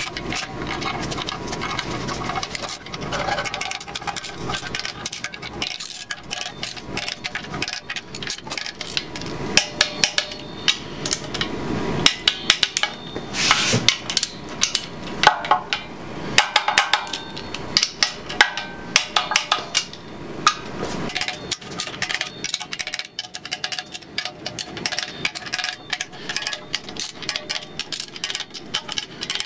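Hand ratchet clicking in quick runs as the oil pan bolts on an LS 5.3L V8 are run down, with the socket and wrench knocking against the metal. The clicking is busiest and loudest through the middle.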